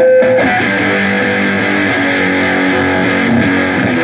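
Peavey T-60 electric guitar played through a JHS Lizard Queen octave fuzz pedal into a Laney AOR head and Marshall 1982B cabinet: thick, fuzzed chords and notes ringing on steadily and loud.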